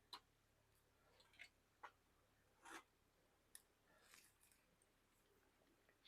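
Near silence with a few faint, scattered clicks and one slightly longer soft scrape, spaced irregularly about a second apart.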